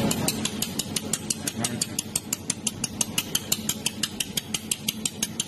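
Pulsed jewelry laser welding machine firing repeatedly, a sharp click with each pulse at about six a second, its repetition frequency set to 5 or 6 pulses per second. A steady low hum runs underneath.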